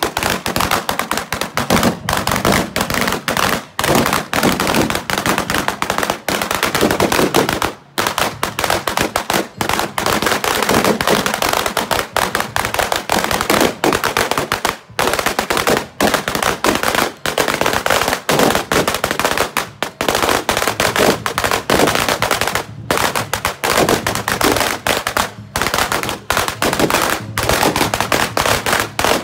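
Strings of firecrackers going off in a rapid, unbroken rattle of sharp bangs, with a few momentary breaks in the chain.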